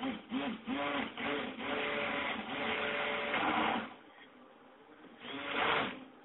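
Electric stick blender mixing cold process soap batter, run in a few short pulses and then steadily for about two seconds before stopping about four seconds in. One more brief burst follows near the end.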